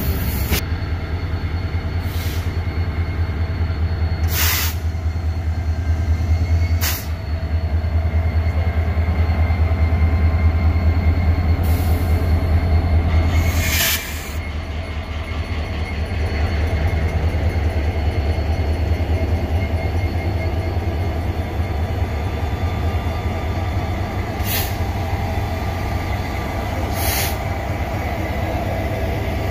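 EMD diesel-electric locomotive engines idling with a heavy steady low rumble, broken every few seconds by short sharp hisses.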